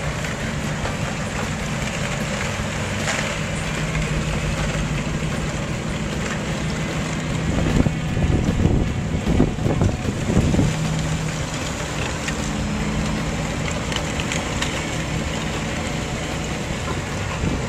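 Tugboat's diesel engine running steadily with a low hum, as the tug pushes against a barge in broken ice. About eight to eleven seconds in there is a louder, irregular low rumbling.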